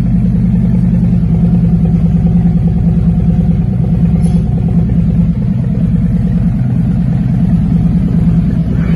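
2018 Harley-Davidson Freewheeler trike's Milwaukee-Eight V-twin idling steadily through 4-inch DNA megaphone slip-on mufflers, a deep, even lumpy rumble. It sounds deep because the stock catalytic converters stay in place.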